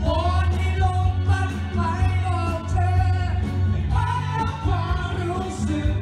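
A song with a singer over a steady bass line and drums.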